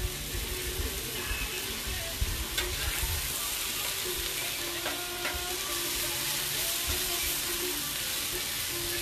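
Cubed marinated taco meat sizzling on a Blackstone flat-top griddle, a steady frying hiss.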